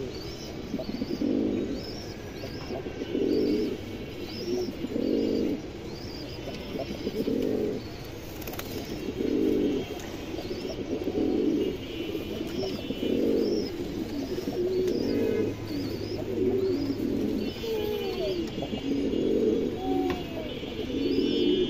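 Domestic pigeons cooing, a low coo about every two seconds, while a bird chirps high and repeatedly in the background.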